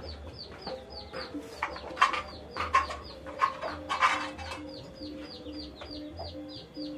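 Chickens: a rapid run of short, high, falling peeps, typical of chicks, with low clucks repeated evenly from about three seconds in and a few louder clucks between two and four seconds.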